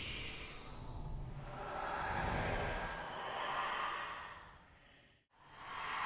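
Ghostly horror sound effect of breathy, sighing noise that swells and ebbs in slow waves. It fades out to silence about five seconds in, then swells back.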